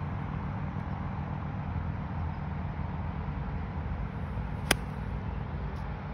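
A 58-degree wedge striking a golf ball on a short approach shot: one sharp click about three-quarters of the way through, over a steady low rumble.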